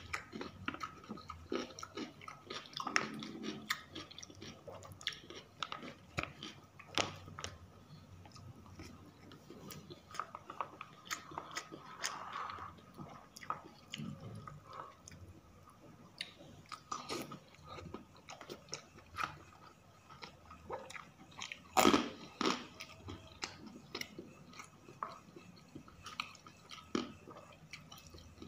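Mukbang eating sounds: a person chewing and biting a meal of rice and grilled chicken, with irregular wet mouth clicks and occasional crunches, one sharper and louder than the rest about three-quarters of the way through.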